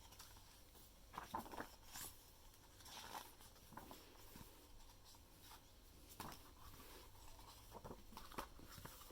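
Faint handling of an album's paper and card: scattered light rustles and taps, as of pages and inserts being moved.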